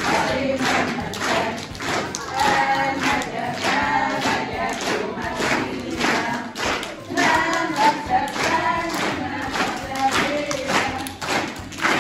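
A group of voices singing a folk song together, with the thud of dancing feet on the floor.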